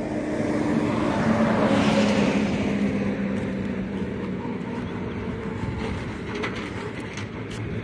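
A road vehicle passing by: its engine and tyre noise swells to a peak about two seconds in, the engine's pitch dropping slightly as it goes past, then fades away slowly.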